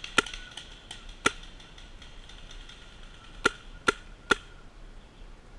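Paintball markers firing single shots: five sharp pops, two in the first second and a half, then three in quick succession about a second apart near the end.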